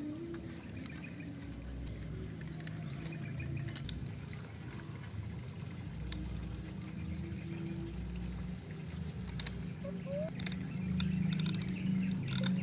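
Loose dry soil crumbling and scraping as a toy wheel loader is pushed through a dirt pile by hand, with a few sharp clicks in the second half.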